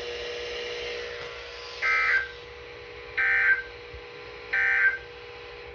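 Emergency Alert System end-of-message signal: three short, identical bursts of SAME digital data tones, a little over a second apart, with a faint steady hum underneath.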